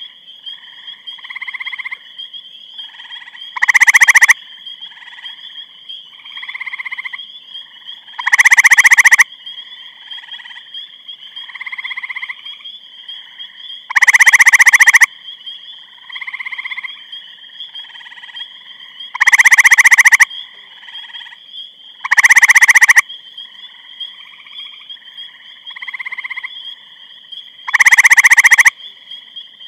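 Gray treefrog calling: six loud, short trills a few seconds apart, each lasting about a second or less, with fainter trills in between over a steady high-pitched tone.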